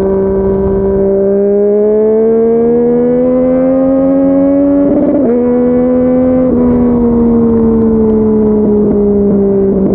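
Yamaha MT-09 three-cylinder engine through a Yoshimura R55 slip-on exhaust, ridden on the road. It holds a steady note, then pulls up through the revs for about four seconds. It shifts up about five seconds in with a sharp drop in pitch, and after that it rolls off with the revs falling steadily, with a few crackles near the end.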